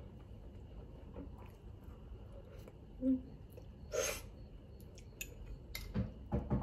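A person eating noodles with a metal fork from a ceramic bowl: a slurp of noodles about four seconds in, quiet chewing, and a few sharp clicks of the fork against the bowl near the end. A short low hum-like sound comes about three seconds in.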